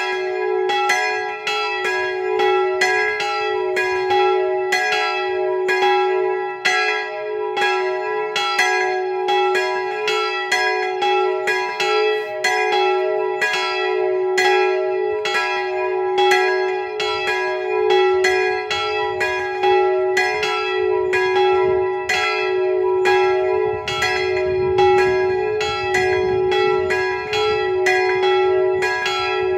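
Two swinging bronze church bells ringing together, their clappers striking several times a second in uneven, overlapping strokes over a steady ringing tone. They are the smaller bells of a three-bell belfry, tuned to about E and G-sharp; the smallest one's clapper makes double strikes.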